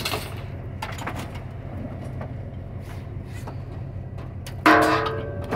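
Scrap metal being unloaded from a pickup bed: a few light knocks, then about five seconds in a loud metal clang that rings on briefly, over a steady low rumble.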